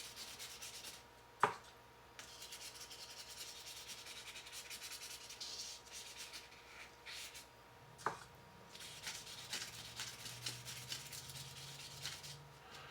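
Fine-grit wet-and-dry sandpaper rubbing by hand over a Swiss Army knife's plastic cellidor scale: a soft, continuous scratchy rubbing. Two sharp knocks come through, the louder about a second and a half in and another about eight seconds in.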